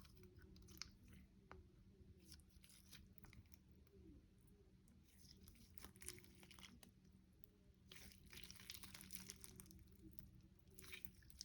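Faint crackling and clicking of clear slime being squished and mixed with acrylic paint, in irregular clusters that grow denser about halfway through.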